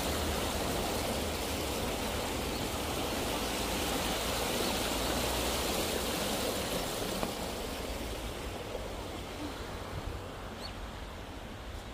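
Shallow stream rushing over rocks around stepping stones: a steady hiss of running water that grows fainter in the last few seconds.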